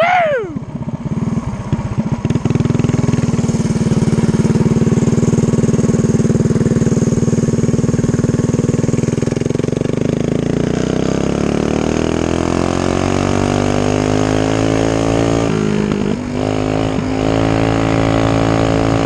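Stage 3 Predator 212 single-cylinder four-stroke engine of a mini bike running hard under way. Its pitch climbs steadily from about ten seconds in, dips briefly a few seconds later, then holds steady.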